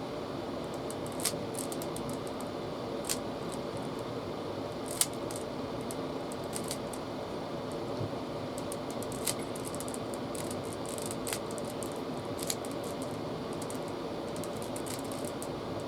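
Rubik's cube being turned by hand: scattered plastic clicks and clacks of the layers, irregular and of uneven loudness, over a steady low hum of room noise.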